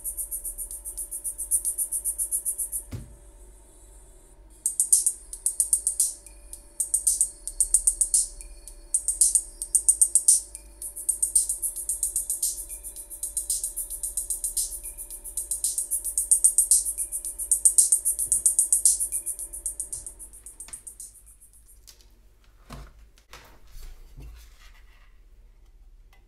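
Music with a drum beat played through a bare tweeter from a Sony SS-H991 speaker, as a test of the driver. It sounds thin and tinny, almost all treble, mostly pulses of hi-hat-like hiss on the beat with almost no bass. The music stops about 20 seconds in, followed by a few handling clicks and knocks.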